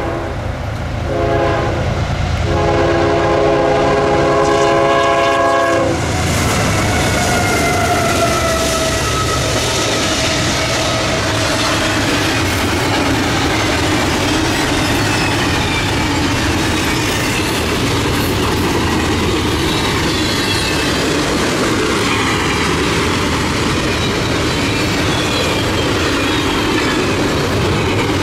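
Diesel locomotive air horn sounding: a brief blast, then a long multi-note blast that stops about six seconds in. Then the steady rumble of a double-stack container train rolling past, with wheels squealing on the curve in high, slowly falling tones.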